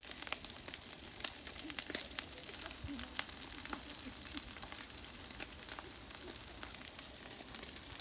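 Wildfire burning: a steady hiss of flames with many sharp crackles and pops scattered through it, thicker in the first half.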